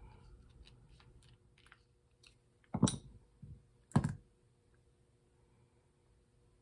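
Light clicks and taps of small metal parts as a hand crank drill is taken apart on a workbench, with two sharp knocks about three and four seconds in.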